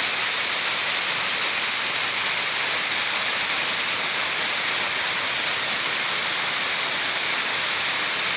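Waterfall: a steady rush of falling water, an even hiss that does not change.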